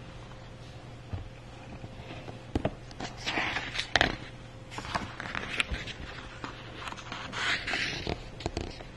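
A hardcover picture book being handled and opened: the stiff cover swung open and then a page turned, with paper swishes and light clicks and taps. The louder swishes come about three and a half seconds in and again about seven and a half seconds in.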